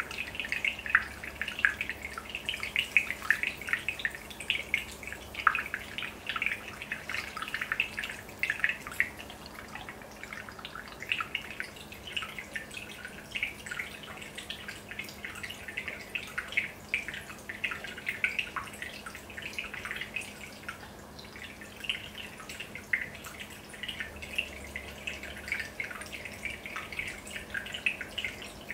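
Aquarium aeration bubbling: a continuous stream of small bubbles plopping and dripping at the water surface, with a faint steady hum beneath.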